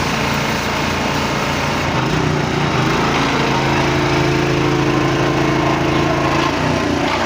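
Generator's engine running steadily. About two seconds in its note changes and it settles into a steadier, slightly louder run.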